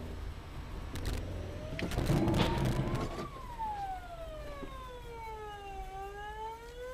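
An emergency vehicle's siren wailing, sweeping slowly up and down in pitch, heard from inside a car. About two seconds in, a short louder burst of noise and knocks covers it.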